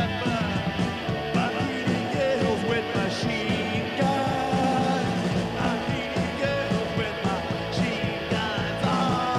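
Garage-punk rock band playing: electric guitar, bass and drums with a steady beat, and a man singing.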